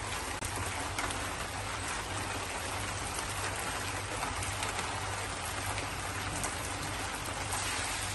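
Light rain falling on a wet concrete courtyard: a steady, even hiss with faint scattered drips.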